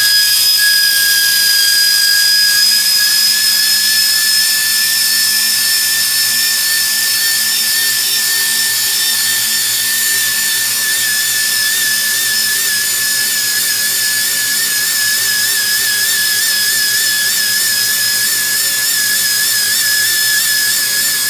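Tire buffer running at speed and scuffing the inner liner of a tire around a puncture, roughening it so a patch will stick: a steady high whine over hiss, its pitch wavering slightly in the second half as the buffer is worked against the rubber, cutting off at the end.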